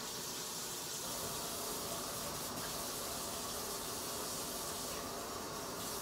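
A steady, unbroken hiss that holds at one level throughout.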